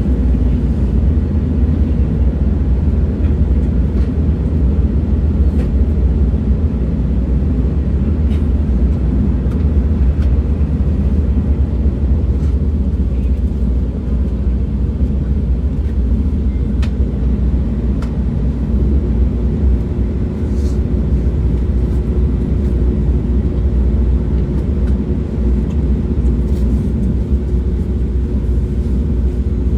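Steady low rumble of a moving train, with a few faint ticks and, from about two-thirds of the way through, a faint steady hum.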